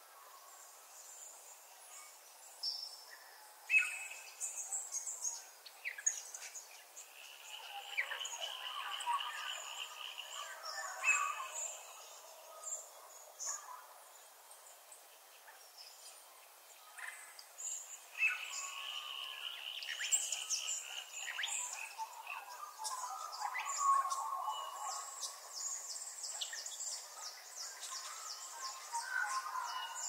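Songbirds singing and chirping, with short calls and fast repeated trills. A long high trill runs through the last few seconds.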